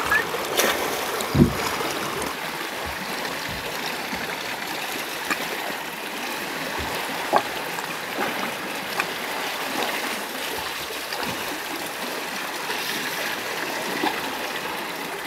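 A thin stream of water trickling from a spout in the rock into the sea, over the steady wash of the water. A soft thump about a second and a half in, and a few small clicks and splashes.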